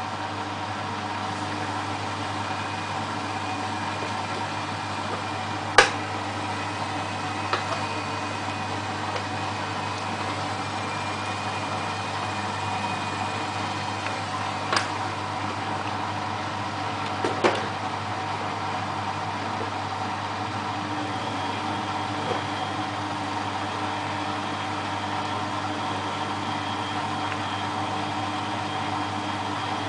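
Beko WMA642 washing machine running in the slow anti-tangle stage at the start of its spin, a steady mechanical hum, with a few sharp knocks from the drum, the loudest about six seconds in.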